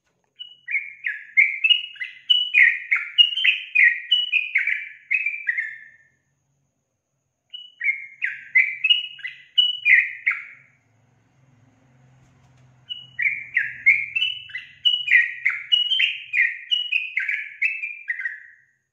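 Yellow-vented bulbul (trucukan) singing: three runs of quick, short falling phrases, about two a second, broken by pauses about six and eleven seconds in.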